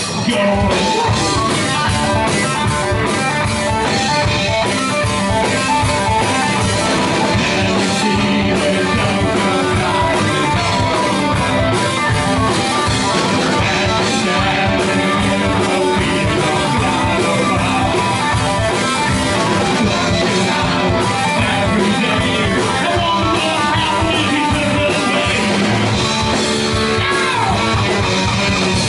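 Rock music with guitar and a drum kit playing at a steady beat.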